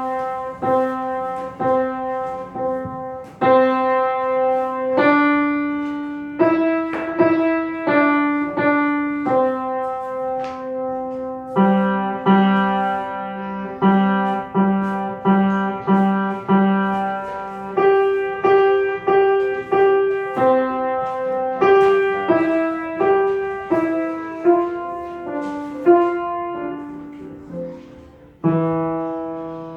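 Solo piano playing a simple, moderately paced melody, each note struck and left to fade, over a few lower notes, with a short run of repeated low notes about halfway through.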